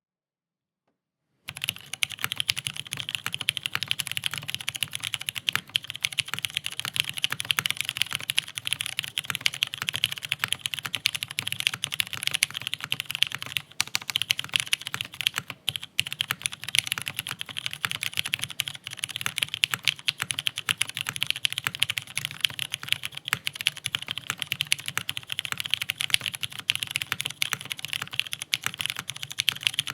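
Fast continuous typing on a Jane V2 CE mechanical keyboard with retooled Cherry MX Brown switches, O-ring mounted on a carbon-fibre plate: a dense run of key clicks that starts about a second and a half in, with a couple of short pauses around the middle.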